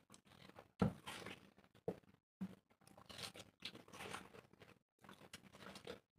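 Two people biting into and chewing watermelon slices: wet, crunchy bites and juicy chewing in irregular bursts, the loudest bite about a second in.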